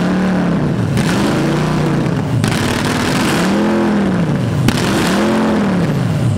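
Toyota 1UZ V8 engine running on a stand and revved by hand at the throttle: the tail of one rev at the start, then three blips, the pitch climbing and falling back each time, with a short settle near idle in the middle.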